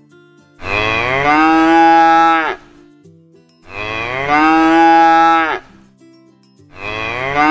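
A cow mooing: three long moos about three seconds apart, each rising slightly in pitch and dropping off at the end.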